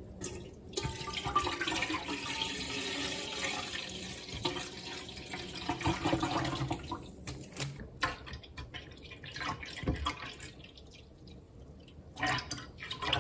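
Cloudy apple juice being poured from a bottle into a slow cooker's pot: a steady pouring stream that starts within the first second and eases off about seven seconds in, followed by a few light clicks and knocks.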